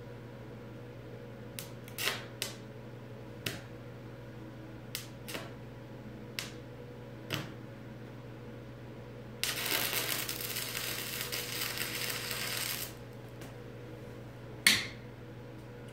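A stick (arc) welder striking and holding an arc on a steel beam-to-post joint: scattered sharp taps and clicks, then about three seconds of steady hissing crackle from a short weld, over a steady low hum. One louder click comes near the end.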